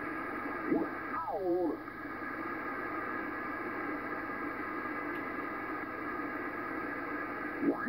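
Receiver audio from a Yaesu FT-1000MP Mark V on the 40 metre amateur band while its tuning dial is turned: steady band hiss and static. About a second and a half in, a short garbled voice slides down in pitch as the tuning sweeps past a single-sideband station. A clear voice comes in at the very end.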